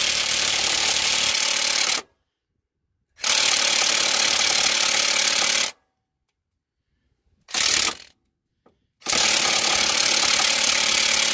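Cordless 1/2-inch impact wrench hammering on a Honda J-series crank pulley bolt. It runs in three long bursts of about two to three seconds each, with a brief blip between the second and third. The bolt does not break loose.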